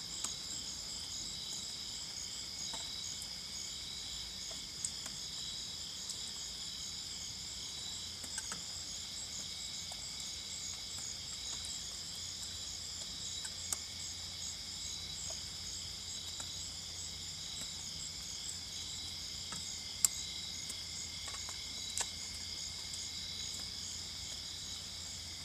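Night insect chorus of crickets and other insects: steady overlapping high-pitched trills at several pitches, some of them pulsing, making a continuous shrill hiss. A few faint ticks, the clearest about 20 seconds in.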